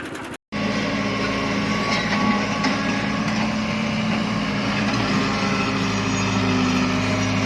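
Heavy diesel engine of a construction vehicle running steadily with a low hum, starting after a brief silence about half a second in.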